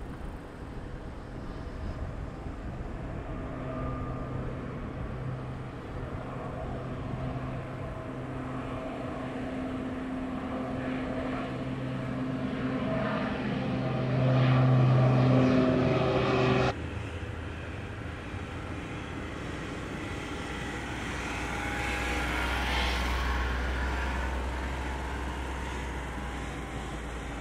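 De Havilland Canada Dash 8-400 turboprop, with its twin Pratt & Whitney PW150A engines and six-bladed propellers, climbing out after takeoff and passing overhead. A steady propeller drone with a low hum grows louder toward the middle and drops off sharply about two-thirds through. A deep rumble then swells and fades as the aircraft flies away.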